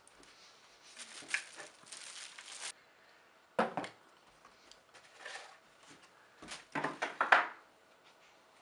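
Clear plastic bag crinkling and rustling as a stainless steel can opener is slid out of it, with a sharp knock about three and a half seconds in and a cluster of louder rustles and knocks near the end.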